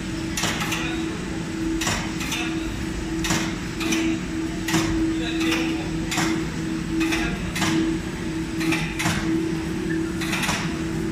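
An automatic Malabar paratha production line running: a steady motor hum with sharp metallic clacks recurring irregularly, about once or twice a second.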